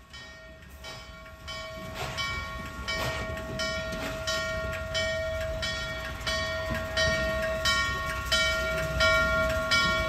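A bell ringing steadily, struck about twice a second, over the low rumble of the approaching N&W No. 611 steam locomotive, both growing louder.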